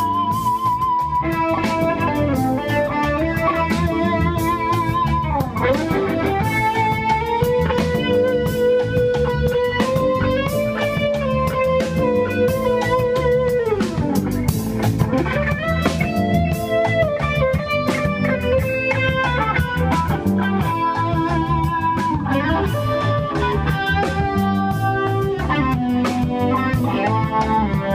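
Ethio-reggae band playing: a semi-hollow-body electric guitar carries the lead line in long held notes with pitch bends, over a steady rhythm and bass.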